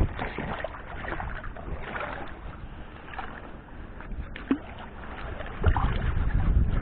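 Wind buffeting the microphone in gusts, swelling again near the end, with a few light knocks, one sharper about four and a half seconds in.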